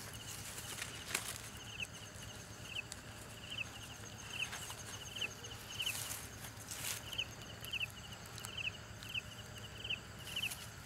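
A night-calling insect chirping steadily, each chirp a short high-pitched trill of a few quick pulses, repeating a little more than once a second. Over it come rustling and crackling of dry leaves and a plastic sack being handled.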